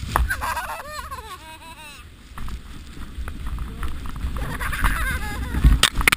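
A girl laughing and squealing with a wavering, falling pitch while sliding down a luge track on a sled, over a steady low rumble of the sled on the snow and wind on the microphone. A few sharp knocks near the end as the sled bumps along.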